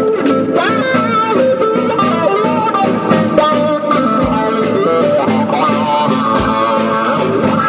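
Guitar playing a melodic line of plucked notes, with a few brief low thuds.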